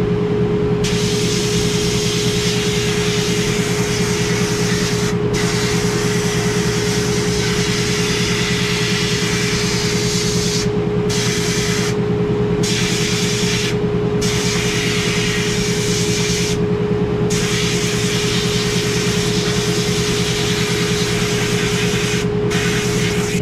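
Abrasive blasting of steel brackets: the compressed-air blast gun gives a loud, steady hiss that cuts out briefly about six times, over a steady machine hum with one held tone that never stops.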